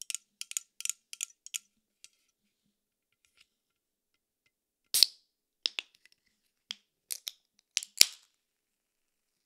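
Fingernails tapping on an aluminium Poppi soda can, a quick run of light clicks, then the can's pull tab being worked with sharp clicks and snaps. The loudest snap comes near the end as the can opens.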